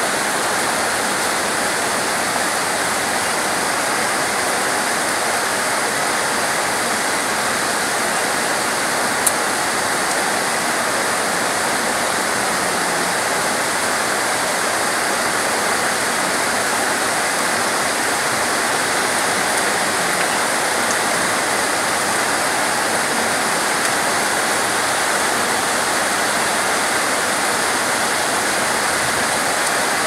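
Steady downpour of rain on palm trees and foliage: an even, unbroken hiss, with one short click about nine seconds in.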